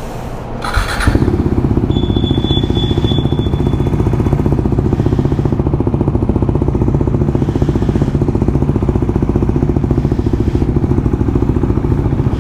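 KTM Duke motorcycle engine being started: a short crank about a second in, then the engine catches and idles steadily with an even pulsing beat.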